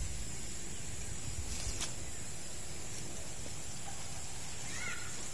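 Open-field ambience: a steady high insect hum over a low rumble, with a faint click about two seconds in and a short chirp near the end.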